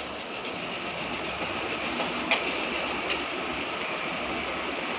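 Chopped onions, tomatoes and green chillies sizzling steadily in oil in a metal kadai while being stirred with a slotted metal spatula, with two sharp taps of the spatula against the pan a little past halfway.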